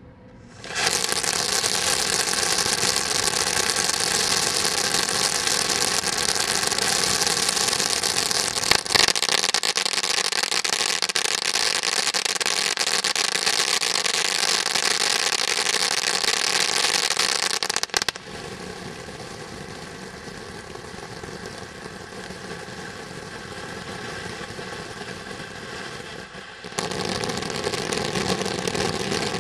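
Firework fountain spraying with a steady hiss and crackle. It starts about a second in, gives a short pop about a third of the way through, drops to a quieter spray after about 18 s, and grows loud again near the end as the next effect starts.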